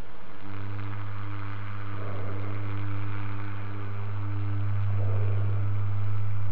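Low, steady drone of dark film-score music, swelling about five seconds in, with muffled breathing through a gas mask about every three seconds.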